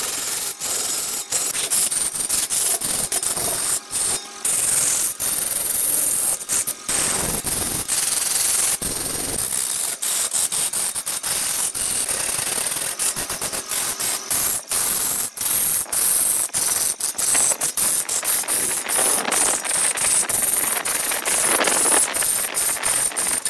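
A gouge cutting into a large log spinning on a big wood lathe: a loud, steady scraping rush with a dense, uneven run of sharp clicks as shavings are torn off the wood.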